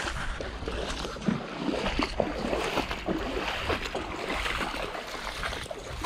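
Footsteps splashing through shallow, flowing floodwater, one irregular splash after another. Wind rumbles on the microphone underneath.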